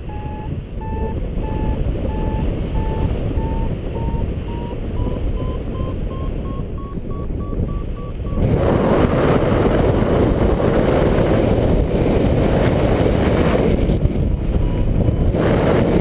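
Paraglider variometer beeping about twice a second, its pitch slowly rising as the climb strengthens in lift, over wind rushing on the microphone. A little past halfway the beeping stops and the wind rush gets much louder.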